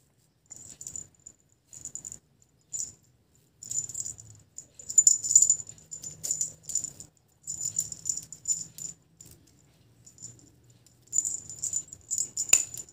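Small jingle bell on a braided cat collar jingling in short, irregular shakes as the collar is handled and adjusted, with a sharp click near the end.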